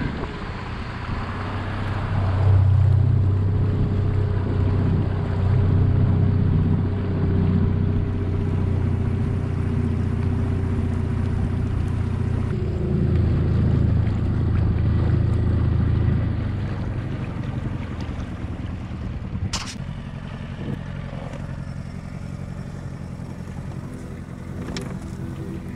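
Storm F18 four-stroke outboard motor running steadily, pushing an inflatable boat along, during its running-in period. It drops to a quieter, lighter sound about two-thirds of the way through, with a few faint clicks near the end.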